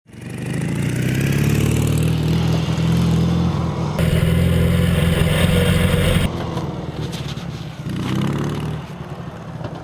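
Ural sidecar motorcycle's air-cooled flat-twin engine running. For about two seconds from four seconds in it is heard close up with wind rush, then further off, its pitch rising briefly about eight seconds in as it speeds up.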